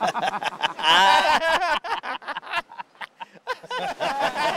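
A man laughing hard in quick bursts, with a long high-pitched stretch of laughter about a second in.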